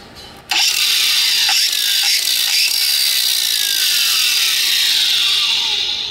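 Ryobi 18V One+ brushless cordless angle grinder switched on about half a second in and running free, with no load, with a high whine, then switched off near the end. The 7/8-inch-arbor wheel, clamped by the flipped flange nut, spins with no wobble.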